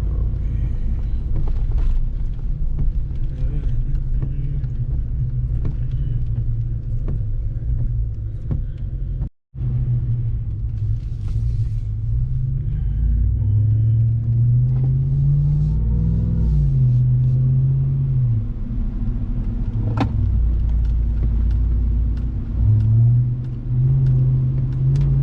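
Supercharged 6.2-litre Hemi V8 of a 2021 Ram 1500 TRX pickup driving, heard from inside the cab as a low rumble with road noise. The engine note climbs about thirteen seconds in and eases back down a few seconds later; a single sharp click comes about twenty seconds in.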